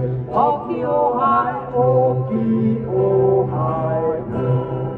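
Four acoustic guitars strummed together with voices singing over them.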